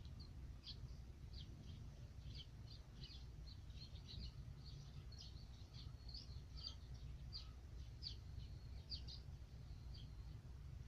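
Small birds chirping faintly, a quick irregular run of short high chirps with a few brief held notes, over a steady low background rumble.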